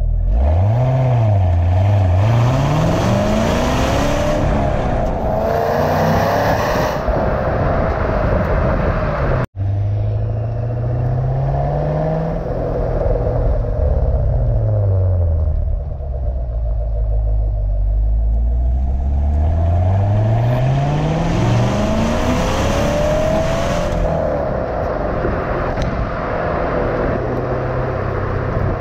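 Chevrolet C7 Corvette Grand Sport's 6.2-litre LT1 V8 heard right at the tailpipes through the stock NPP dual-mode exhaust with its valves closed (Eco/Tour mode), while the car drives. The note climbs and drops with gear changes, falls away as the car slows about halfway through, then rises again and settles into a steady cruise.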